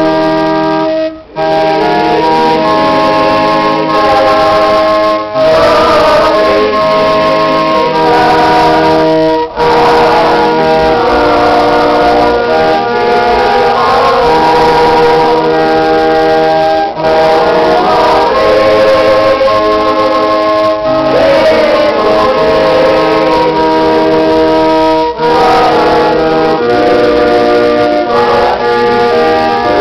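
Hymn played as sustained organ chords on an electronic keyboard, with voices singing along. The music breaks off briefly between phrases.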